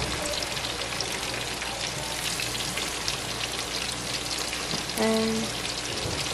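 Breaded pickles deep-frying in hot oil in a small saucepan: a steady sizzle full of fine crackles. About five seconds in, a brief steady pitched tone sounds for half a second over the frying.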